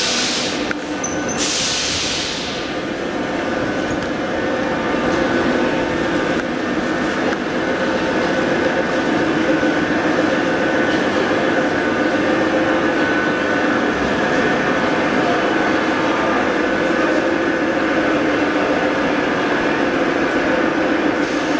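Moscow Metro train at the platform: two sharp hisses of air in the first couple of seconds as it comes to a halt, then the standing train's onboard machinery humming steadily with a few held tones while its doors stand open.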